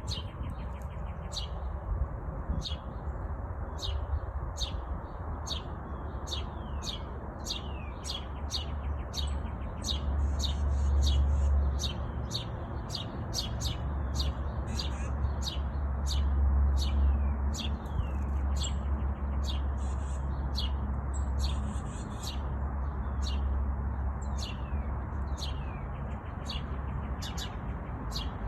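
A small bird chirping over and over: short, sharp, high notes that drop in pitch, about one or two a second, with no break. A steady low rumble runs beneath, louder at times.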